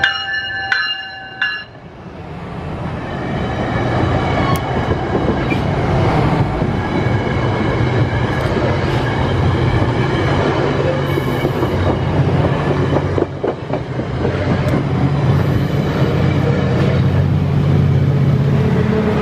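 Commuter train of stainless-steel bilevel passenger cars passing close by, its wheels rumbling and clattering on the rails. The diesel locomotive pushing at the rear passes near the end, and its engine hum grows louder. A bell rings a few strokes in the first couple of seconds.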